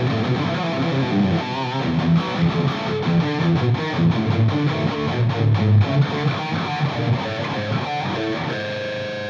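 Electric guitar with a DiMarzio Crunch Lab ceramic humbucker in the bridge position, played with a crunchy tone: a run of picked notes and phrases, ending on a note left ringing from about eight and a half seconds in.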